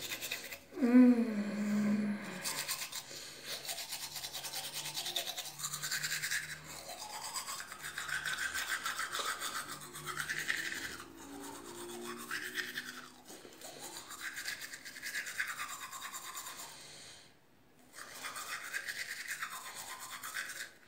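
Manual toothbrush scrubbing teeth: a steady, rapid rasp of bristles inside the mouth whose tone shifts as the brush moves around, with a short break near the end. A brief voice sound falling in pitch about a second in.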